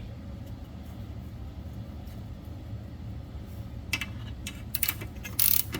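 A low steady hum, then from about four seconds in a run of sharp metallic clicks that come quicker and louder near the end: a ratchet wrench turning the brake caliper bracket bolts.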